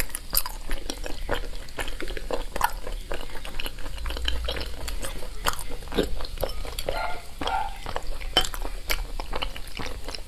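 Close-miked chewing of saucy braised meat: a steady run of sharp, wet mouth clicks and smacks. Near the end, chopsticks clink against a glass sauce bowl.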